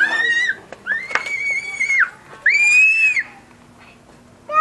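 Three long, high-pitched squealing cries from a voice, each held on one pitch; the middle one lasts about a second.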